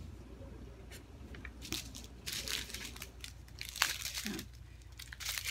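Small plastic bags of diamond painting drills crinkling and rustling as a strip of them is handled, in short irregular crinkles with one sharper click a little under four seconds in.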